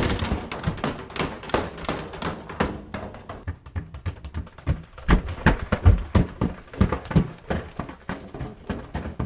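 AI-generated sound effect of a man tumbling down stairs: an irregular run of thuds, knocks and bumps, with the heaviest low thuds about five to seven seconds in.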